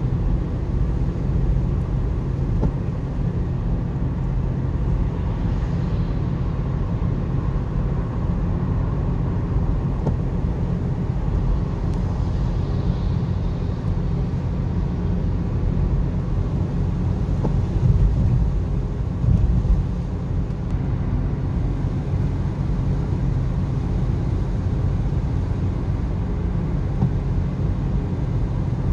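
Steady low rumble of tyre, road and engine noise inside a car cruising on a wet motorway, with a couple of brief louder bumps about two-thirds of the way through.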